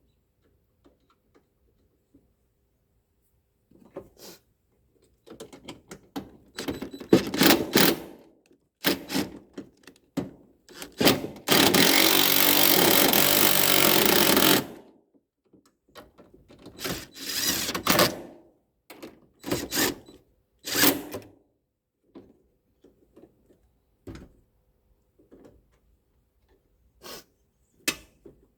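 Power drill driving bolts and screws back into a tailgate, run in short bursts of a second or so, with one longer steady run of about three seconds in the middle.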